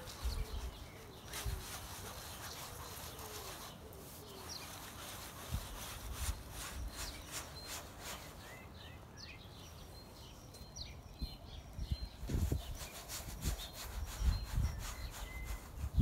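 Bare hands rubbing wet paint across a stretched canvas, a scratchy rubbing in repeated strokes, with a few short bird chirps around the middle and some low thumps near the end.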